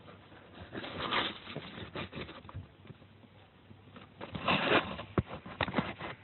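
Irregular rustling and scraping close to the microphone, with a few sharp clicks about five seconds in: handling noise from the recording phone.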